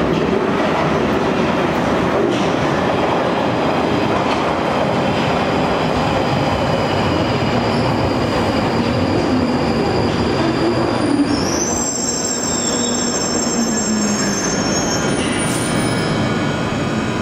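London Underground 1995 Stock train running into the platform and slowing to a stop, with loud wheel-on-rail rumble. A low whine falls in pitch as it slows, and high squealing sets in over the last few seconds as it comes to rest.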